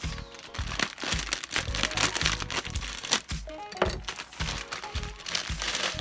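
Background music with a steady beat, over the crinkling of a plastic bag of broccoli being handled.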